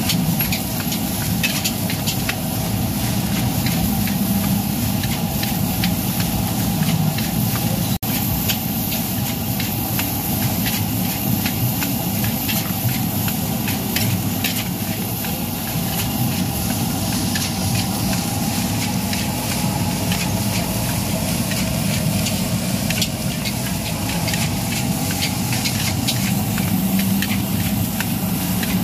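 Fried rice being stir-fried in a large metal wok: a metal spatula scraping and clicking against the pan over a steady sizzle.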